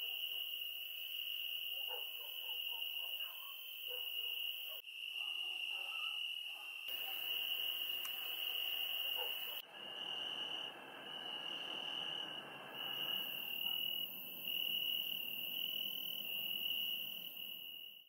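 Crickets singing at dusk: a steady high-pitched trill that breaks into short stretches in the second half, over a faint outdoor hiss.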